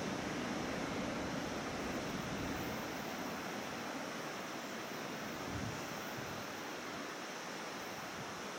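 SBB regional train with an Re 4/4 locomotive receding into the distance: its low rumble fades over the first few seconds. A steady rushing noise remains.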